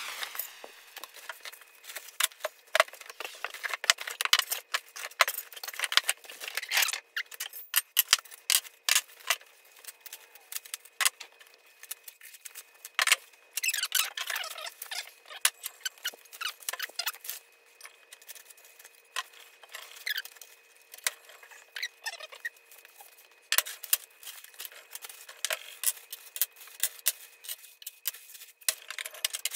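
Unpacking a rotisserie kit: plastic and foam wrapping rustling and crinkling, cardboard handled, and frequent clinks and knocks as metal rotisserie parts are set down on a wooden table.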